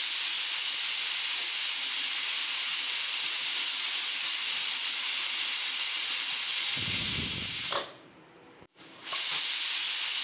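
Pressure cooker whistling: steam hisses steadily out from under the weight valve on the aluminium lid, the release that is counted toward the three whistles that cook the biryani. The hiss breaks off about eight seconds in and starts again about a second later.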